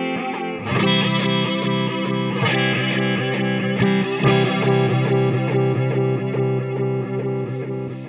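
Electric guitar played through a Chase Bliss Spectre analog through-zero flanger pedal: sustained chords ring with the effect on, with new chords struck about a second in and again at about two and a half seconds, fading near the end.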